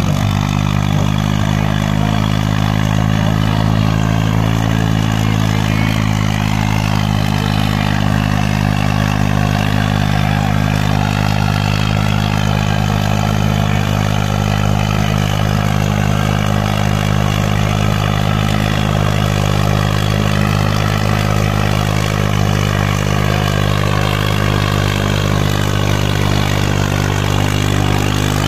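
New Holland 3630 tractor's three-cylinder diesel engine running steadily at high, even revs while it drags a heavy harrow under load.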